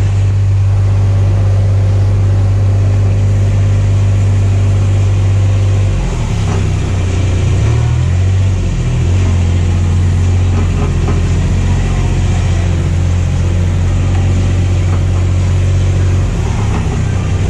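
A small ride-on vehicle's engine running at a steady low hum close by. Its note wavers and shifts for a few seconds about six seconds in, then settles back.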